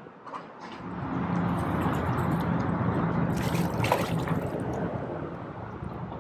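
Water sloshing and rushing close by, with a sharp splash about three and a half seconds in as a released speckled trout (spotted seatrout) hits the water and swims off. A faint low steady hum runs underneath.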